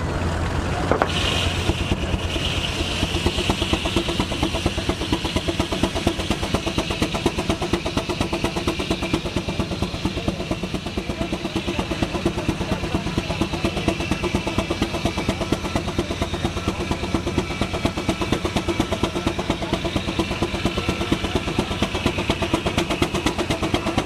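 Case steam traction engine under belt load driving a portable sawmill, its exhaust beating fast and evenly. About a second in, the circular saw starts cutting through a log with a high, steady whine.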